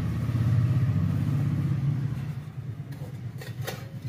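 Steady low rumble of an idling engine that fades about two seconds in, with a few light clicks near the end.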